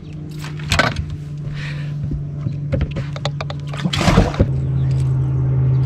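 Knocks and thumps of gear being handled on a bass boat's deck, two sharper ones about a second in and about four seconds in, over a steady low hum that grows louder.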